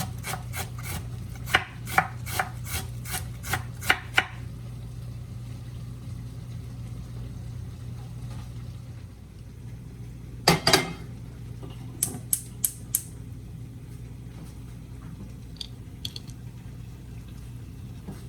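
Knife chopping cabbage on a cutting board, about three strokes a second for the first four seconds, then stopping. A clatter about ten seconds in and a quick run of four taps a little later, over a steady low hum.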